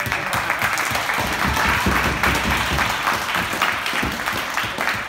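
Audience applauding: loud, dense clapping that breaks out as the speech ends.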